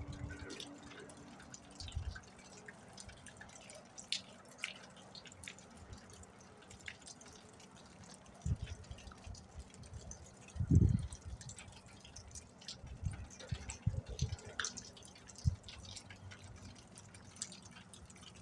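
Scattered faint ticks at irregular times, like dripping, over a quiet steady hiss, with one louder low thump near the middle.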